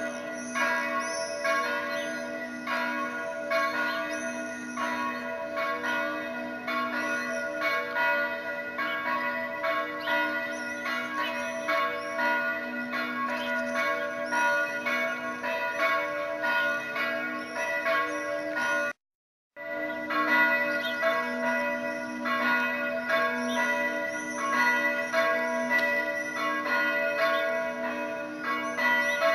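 Church bells ringing a continuous peal, many strikes overlapping about twice a second with a long ringing hum beneath. The sound drops out for an instant about two-thirds through.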